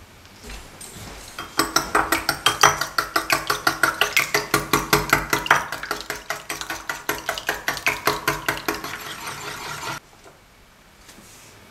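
Wire whisk beating eggs in a small glass bowl: a quick, steady clatter of the wires against the glass at about five strokes a second, with the bowl ringing. It stops suddenly near the end.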